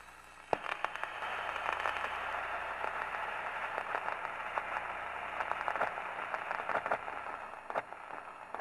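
Crackling static: a steady, muffled hiss dotted with many small clicks and pops, like radio static or record surface noise, that gets louder about half a second in.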